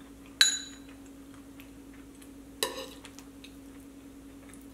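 A metal spoon clinks against a ceramic bowl twice, about two seconds apart: first a sharp, briefly ringing clink, then a softer one, over a steady low hum.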